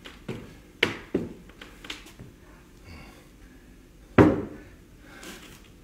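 Light knocks in the first two seconds, then one louder, dull thump about four seconds in: props such as a bottle and glass being handled and set down on a cloth-covered table.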